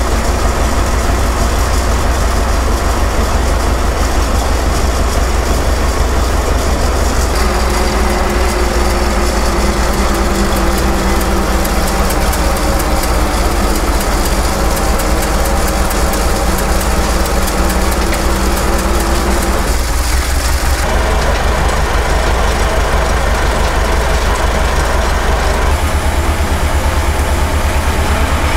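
Vintage Fordson tractor's four-cylinder engine running steadily with a low, even beat as it drives the cable winch. The engine note shifts about a quarter of the way in and again about two-thirds of the way in as the load changes. Near the end a different tractor engine takes over with a faster beat.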